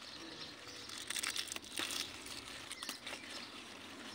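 Strawberry plant leaves rustling and crackling as a hand pushes through the foliage to pick berries, with a few sharper rustles about a second in.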